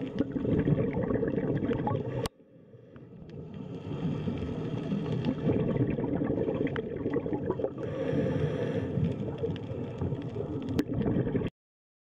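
Underwater recording on a reef dive: a low, dense rush of water with gurgling and small clicks. It drops out abruptly about two seconds in, swells back, and cuts off suddenly shortly before the end.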